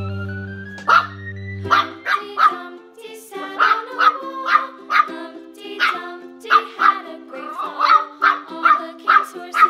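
Jack Russell Terrier puppy barking in short, sharp barks, roughly two a second from about a second in, over background music that starts with a rising run of notes and then holds steady chords.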